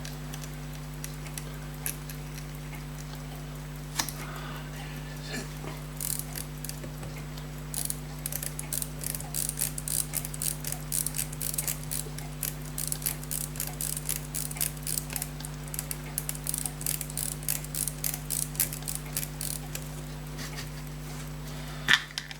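Elgin pocket watch movement, freshly given more wind, a few scattered clicks at first, then ticking steadily at about five beats a second, over a constant low hum.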